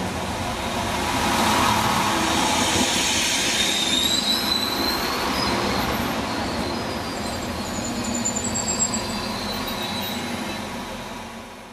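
Sprinter diesel multiple unit (a Siemens Desiro railcar) moving alongside the platform, a steady running noise of engine and wheels. Thin high squeals from the wheels come and go around the middle.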